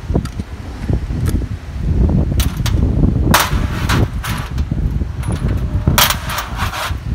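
Knocks and clanks of an aluminium automatic gearbox case being handled and shifted on a steel bench tray, over a low rumble. Two longer rasping noises come about three and six seconds in.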